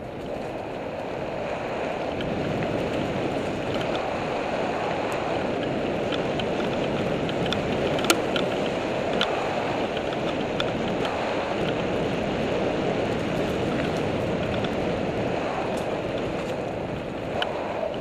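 Wind rushing over the microphone of a mountain bike rolling fast along a dirt trail, with the tyres' rumble. It grows louder over the first couple of seconds as the bike picks up speed to about 35. Scattered clicks and knocks come through as the bike goes over bumps, the sharpest about eight seconds in.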